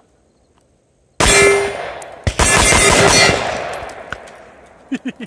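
5.56 rifle firing at a steel armor plate: two loud, sharp gunshots about a second apart, each echoing as it dies away.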